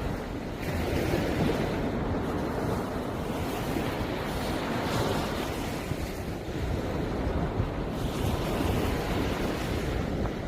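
Sea waves washing onto the shore, swelling every few seconds, with wind buffeting the microphone.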